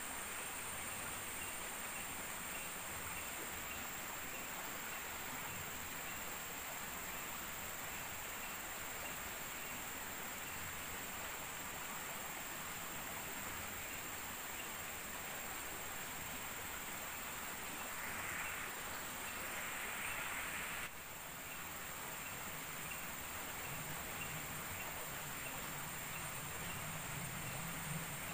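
Forest ambience of insects droning steadily at a high pitch. About two-thirds in, a brighter hiss rises for a few seconds and stops abruptly at a cut in the sound, and a faint low hum comes in near the end.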